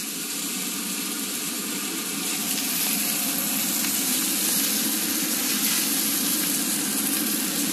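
Aged top sirloin steak sizzling steadily in a smoking-hot stainless-steel pan, a continuous hiss that grows a little louder about two and a half seconds in, with a steady low hum underneath.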